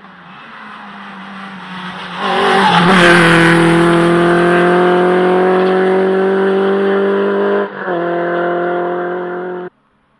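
Rally car engine at high revs, growing louder as it approaches and then holding loud, its note climbing slowly as it accelerates, with a brief dip a couple of seconds before the end. The sound cuts off suddenly just before the end.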